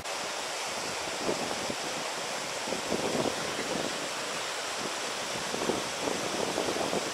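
Steady wind noise with irregular gusts buffeting the microphone.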